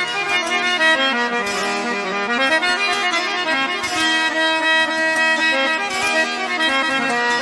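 Instrumental interlude of a Sindhi folk song: a reedy, sustained melody instrument plays a moving tune over a held drone.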